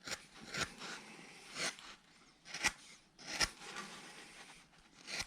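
A large number 11 carving gouge shaving wood by hand: a series of short scraping cuts, about six strokes spaced irregularly with brief pauses between them.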